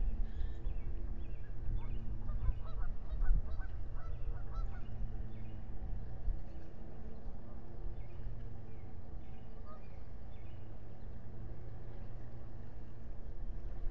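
Geese honking, a quick run of calls in the first half, over a steady low hum.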